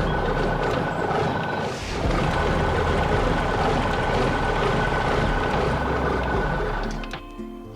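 Heavy machinery engine running with a steady whine over a low rumble, briefly easing about two seconds in and fading out near the end.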